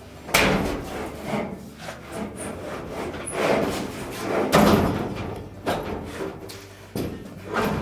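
Sheet-metal dryer drum knocking and scraping against the cabinet as it is lifted back into place: a sharp bang about a third of a second in, then several bouts of clattering and scraping, the loudest a little past halfway.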